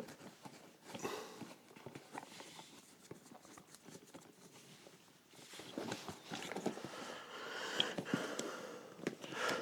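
Hands working on a stripped-down leather shoe: scattered small clicks, taps and scraping, busier and louder in the second half.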